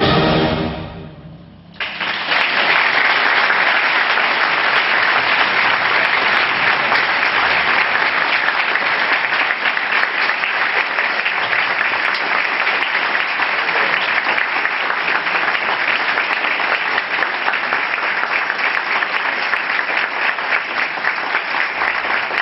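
The ensemble's final chord rings and dies away in the hall, then about two seconds in a concert audience breaks into applause that keeps going steadily.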